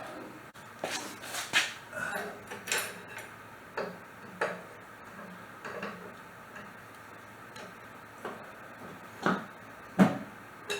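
Metal tools and parts clinking and knocking together in irregular single strikes, the loudest knock near the end, as work on the wheel is finished.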